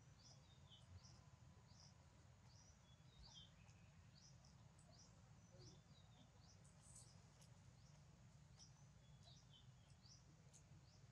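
Near silence with faint, high bird chirps repeating about twice a second, two kinds of call trading off, over a low steady rumble.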